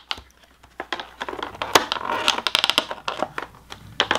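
Clear plastic packaging crinkling and clicking as it is handled and pulled apart by hand. The crinkling is busiest about halfway through.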